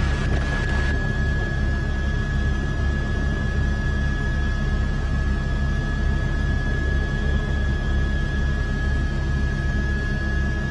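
Helicopter turbine and rotor running steadily, heard from inside the cabin: a constant low throb under a wash of noise, with a thin high whine held throughout.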